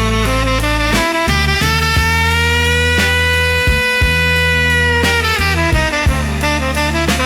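Instrumental passage of a dark blues song with no singing. A lead instrument holds one long note for about three seconds over a steady bass line and regular drum beats.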